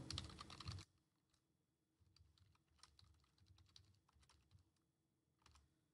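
Typing on a computer keyboard: quiet, irregular keystrokes, a few a second.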